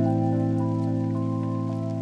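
Soft instrumental background music: a held low chord with a slow melody of single notes above it.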